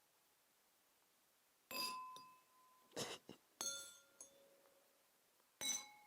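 Glasses struck one at a time, each giving a clear ringing note that fades away; about four strikes of different pitches, including one duller knock about three seconds in.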